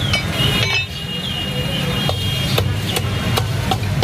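A meat cleaver chopping raw chicken on a wooden log chopping block: a few sharp chops in the second half, over a steady low rumble.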